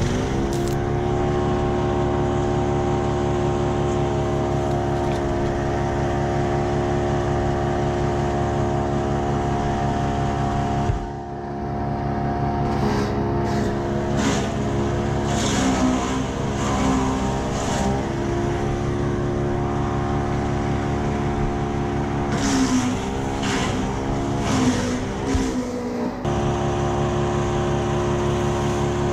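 Petrol engine of a GTM wood chipper running steadily at a constant speed, its pitch sagging and wavering twice as it comes under load. It briefly drops off about a third of the way in.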